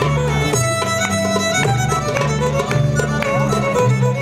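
Live contra dance band playing a fiddle tune: fiddle lead melody over a steady bass and rhythmic accompaniment.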